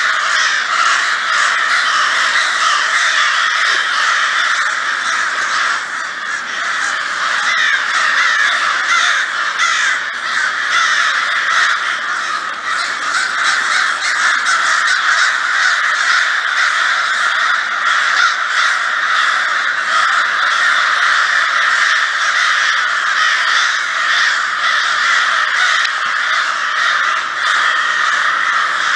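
A large flock of crows cawing, many calls overlapping without a break.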